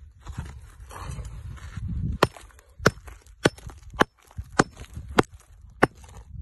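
A steel hand hammer striking crumbly rock in a steady rhythm: seven sharp blows a little over half a second apart, starting about two seconds in. Before the blows, low scraping and crumbling of loose rock and soil.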